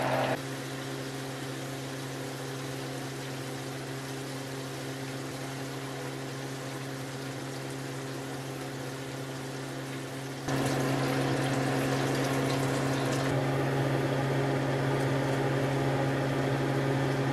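Fish deep-frying in a pot of hot oil: a steady bubbling hiss over a low steady hum, which steps louder about ten seconds in.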